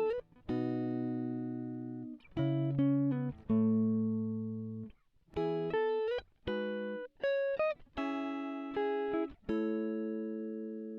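Background music: plucked guitar chords and single notes, each struck sharply and left to ring and fade, in short phrases with brief pauses between them.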